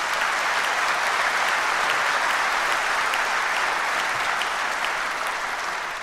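Audience applauding, a dense steady clapping that thins and dies away near the end.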